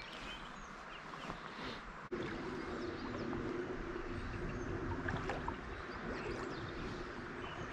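Small birds chirping here and there over a steady rushing outdoor background, which gets louder about two seconds in.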